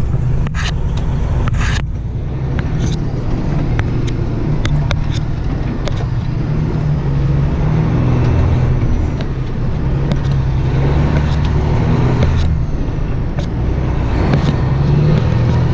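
Semi truck's diesel engine pulling away under load, its pitch climbing and dropping back several times as it works up through the gears. There are two sharp clicks in the first couple of seconds.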